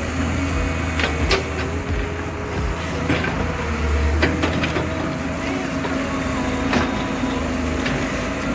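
Komatsu hydraulic excavator's diesel engine running steadily while it works, with several sharp metallic knocks from the machine.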